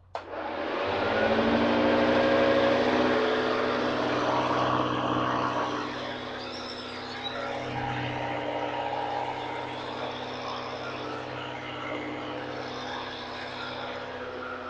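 Hoover Junior upright vacuum cleaner switched on: its motor spins up over about a second to a steady whine, running with the motor-driven beater bar brush. It is loudest for the first few seconds, then settles to a somewhat quieter steady run about six seconds in.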